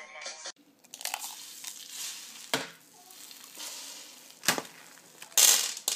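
Egg frying in a hole cut in a slice of bread on a hot griddle, crackling and sizzling. There are sharp knocks about two and a half and four and a half seconds in, and a loud burst of hiss near the end.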